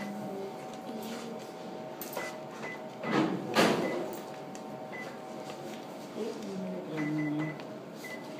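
Shop background sound: faint distant voices over a steady hum, with a short loud rustle about three seconds in.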